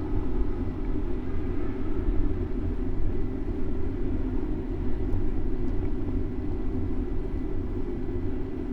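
Steady rumble of city traffic mixed with road and wind noise, as picked up by a camera mounted on a moving bicycle.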